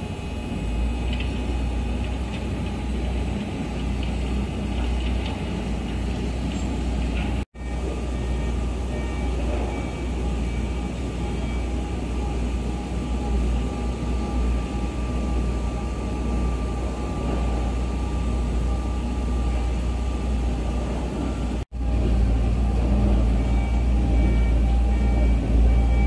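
Steady low rumble and hum of a JR Shikoku 8000 series electric train standing at a station platform. The sound drops out abruptly twice for a split second.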